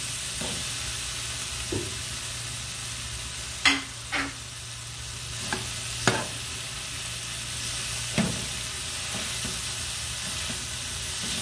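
Leeks and eggplant pulp sizzling in hot olive oil in a frying pan, stirred with a metal spoon that knocks against the pan several times.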